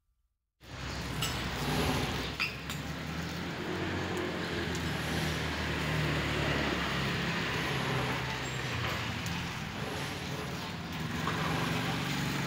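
Road traffic noise with engines running, cutting in abruptly about half a second in after silence, with a few sharp clicks and clatters early in the sound.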